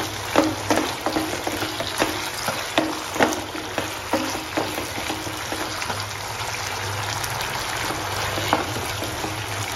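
Onion and capsicum cooking on high heat in a thick bubbling soy-and-ketchup sauce in a nonstick wok, stirred with a wooden spatula that scrapes and knocks against the pan. The knocks come often over the first four seconds or so and more sparsely after that.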